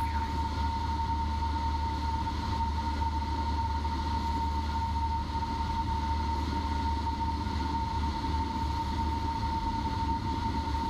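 Cessna 172P cabin noise in flight, heard through the intercom audio feed: the steady low drone of the four-cylinder piston engine and propeller, with a steady high whine running under it.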